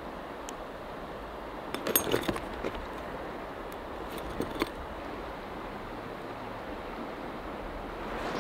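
Small clicks and clinks of fishing gear being handled, a cluster about two seconds in and two more near the middle, over the steady rush of a flowing river.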